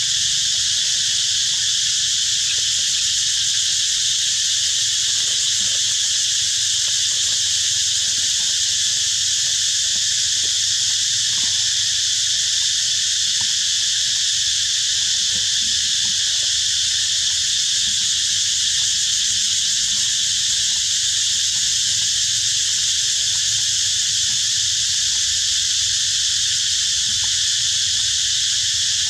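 Steady, unbroken chorus of insects, shrill and high, with faint scattered ticks underneath.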